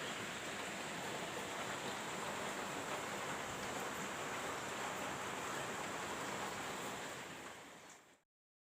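Steady downpour of rain, a dense even hiss, fading out near the end.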